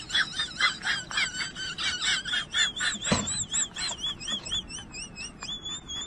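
A rapid series of high, wavering chirps, about five a second, that slows and runs into a longer warbling whistle near the end, with a single knock about three seconds in.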